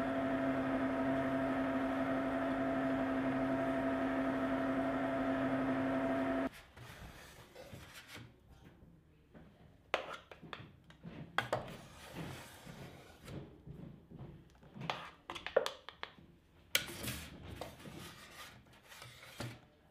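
Cuisinart compressor ice cream maker running with a steady hum as its paddle churns thick gelato, cutting off suddenly about six seconds in. After that, a wooden spoon scrapes and scoops the gelato out of the machine's bowl into a steel pan, in uneven scrapes and knocks.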